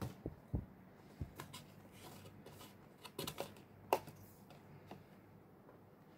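Soft knocks and clicks of items being handled and set down on a tabletop, the sharpest about four seconds in.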